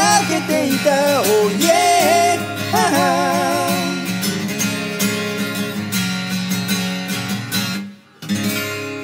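Steel-string acoustic guitar strumming chords, with a sung vocal line gliding over it for the first few seconds. Near the end the playing stops for a moment, then one last strummed chord rings out and fades.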